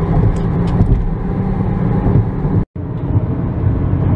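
Steady road and engine noise inside a car's cabin at highway speed: a low rumble with tyre hiss. It cuts out for a split second about two-thirds of the way through, then carries on.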